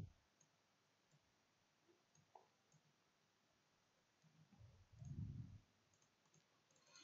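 Near silence, with a few faint computer mouse clicks and one soft, low sound lasting about a second, around five seconds in.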